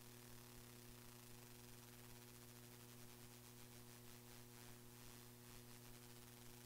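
Near silence: the meeting's audio is missing, leaving only a faint steady electrical hum and hiss.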